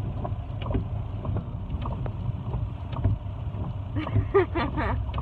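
Low, steady rumble of a car cabin with scattered light ticks and knocks, with faint voices about four seconds in.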